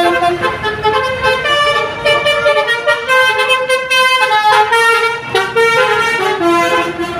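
Bus telolet horn playing a fast tune: several horn tones sound together and step up and down in pitch a few times a second.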